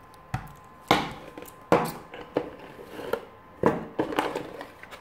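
Cardboard box and plastic adapters being handled on a table: about six knocks and scrapes at uneven intervals as the adapters are set down and the box's inner packing is lifted out.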